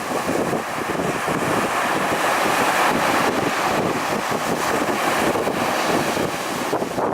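Ocean surf washing onto a beach, a continuous loud rush of breaking waves with wind buffeting the microphone.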